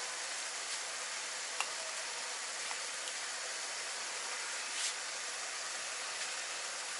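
Steady sizzle of diced zucchini, onion and carrot frying in a pan, with a couple of faint clicks.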